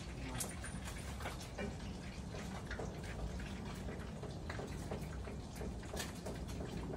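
Water dripping onto wet patio paving: irregular light ticks, a few a second, over a low steady rumble.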